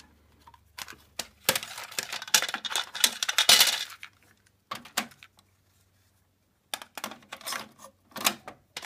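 Plastic cassette tape and case clattering and clicking as they are handled, a dense rattle of clicks for about two seconds, then a few separate clicks as the cassette is loaded into the JVC tape deck and its door is pushed shut near the end.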